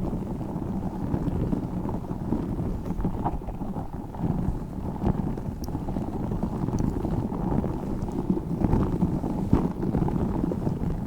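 Tiny spiky Orbeez balls handled close to the microphone: a dense, continuous low rustling and crunching with scattered sharp clicks.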